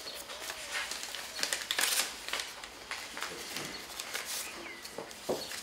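Paper rustling and small crackles as ballot envelopes are opened and the voting slips pulled out and unfolded, with a louder rustle about two seconds in.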